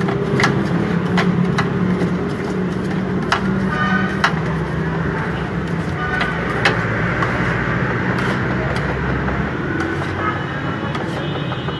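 Metal cleaver and knife blades striking a steel griddle plate in irregular sharp clacks as chicken is chopped on it, over a steady low hum.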